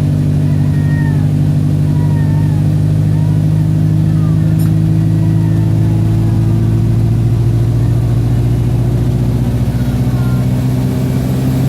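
Wright StreetLite bus's diesel engine droning steadily under load, heard from inside the bus, its pitch slowly rising and dipping briefly near the end. The bus is in limp mode.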